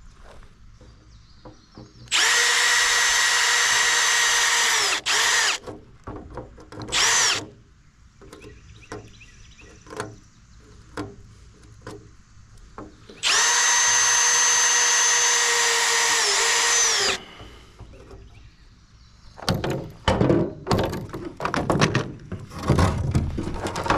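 Handheld electric power tool motor running in two long steady bursts, each of about three to four seconds, its pitch dipping briefly near the end of each as it comes under load, with two short blips between them. Irregular knocking and clattering of handled parts near the end.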